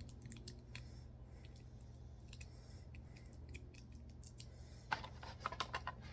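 Light metallic clicks and taps as the tiny diecast dummy rounds and magazine of a miniature STG-44 model are handled, with a quick run of louder clicks about five seconds in.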